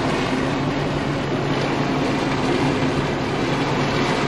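Engines of a 1999 Carver 504 motor yacht running steadily off plane, not yet fully warmed up, heard from the stern: a steady low drone under a loud rushing hiss of wake water and wind.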